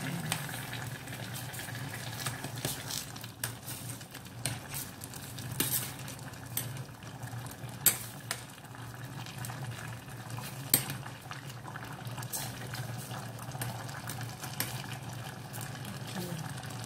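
Metal ladle stirring and scraping a stainless-steel pot of bamboo shoots and tofu simmering in coconut milk, over a steady low hum. Scattered sharp clinks of the ladle against the pot, the loudest about eight and eleven seconds in.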